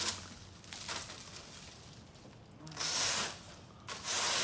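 A rake scraping leaves across an asphalt-shingle roof: hissing, scratchy strokes, one right at the start, a longer one about three seconds in and another near the end.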